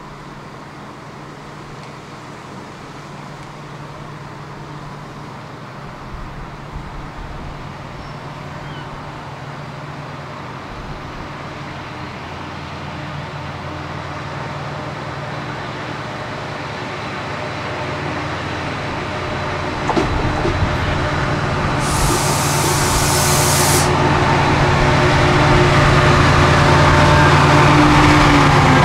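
Class 68 diesel-electric locomotive (Caterpillar V16 engine) approaching and drawing into the platform with its coaches, its steady engine note growing louder throughout. About two-thirds through there is a two-second hiss of air, and near the end a tone falls in pitch as the train slows.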